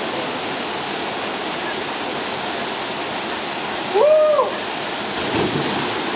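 Waterfall water rushing steadily over the rocks. About four seconds in, a person gives one short rising-and-falling whoop while sliding down the wet boulder, and a brief louder burst of water noise follows about a second later.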